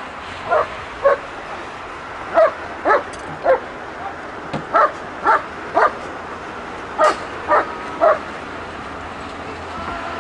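German Shepherd search-and-rescue dog barking: eleven sharp barks in runs of two or three, about half a second apart, stopping after about eight seconds. It is the dog's alert bark, signalling that it has found the person hidden inside the sealed refrigerator.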